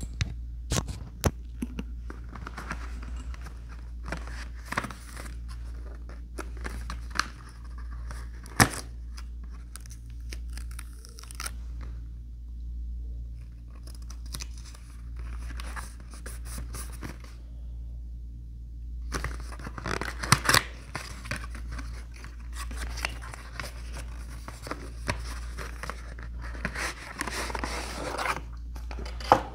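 Cardboard sunglasses box being handled and opened: scattered sharp taps and clicks, a sticker label peeled off the box, and bursts of papery scraping. Near the end a leather case scrapes as it slides out of the box.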